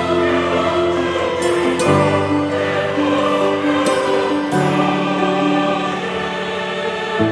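Background music with a choir singing, its chords changing every two or three seconds.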